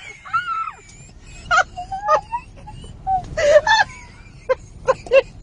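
A small child's squeals and whimpers: a gliding, high-pitched whine in the first second, then a string of short excited cries.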